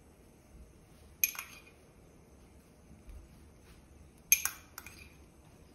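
A small metal spoon clinking against a glass jar of chopped chives: a sharp ringing tap a little over a second in, and another about four seconds in followed by a couple of lighter taps.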